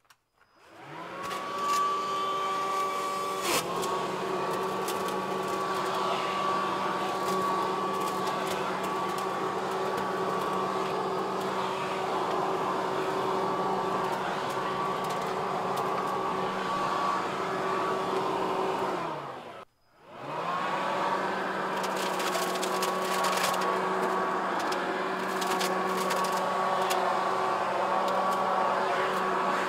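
Ryobi 40-volt Vac Attack cordless leaf vacuum and mulcher spinning up and running with a steady whine while it sucks up leaves, with occasional sharp clicks. It winds down about two-thirds of the way in, then starts up again and runs on.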